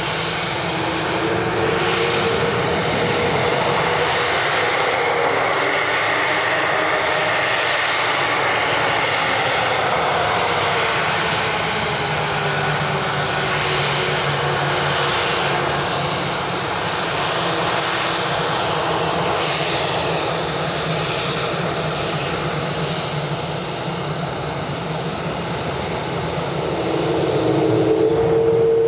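Boeing 787's Rolls-Royce Trent 1000 turbofans running at low power as the airliner taxis past: a steady jet whine with slowly shifting tones, getting louder near the end.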